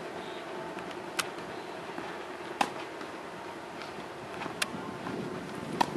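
Tennis ball being struck by rackets and bouncing on a dirt court during a rally: four sharp pops, roughly one and a half to two seconds apart, over a steady outdoor background.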